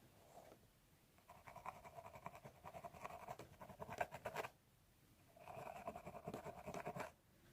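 Scalp being scratched through the hair in two bouts of quick, dense strokes with a short pause between.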